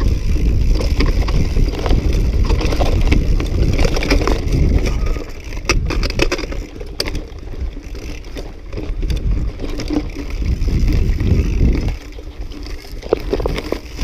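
Mountain bike descending rocky singletrack: a rough rumble of tyres over dirt and stones mixed with wind buffeting the action camera's microphone, and sharp clicks and rattles as the bike jolts over rocks, several of them near the middle.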